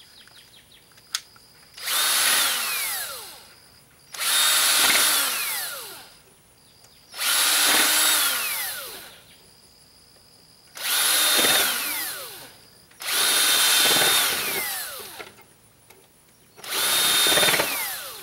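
Cordless drill driving screws through a stainless steel hinge into a plywood board. It runs in six separate bursts of a couple of seconds each, and its whine falls in pitch through each one.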